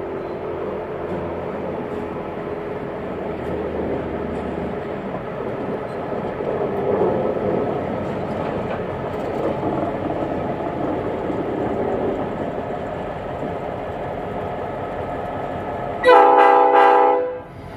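Reading & Northern EMD GP38-2 diesel-electric locomotives running steadily as they roll past. Near the end, a loud multi-tone air horn sounds in one short blast of about a second and a half, then cuts off.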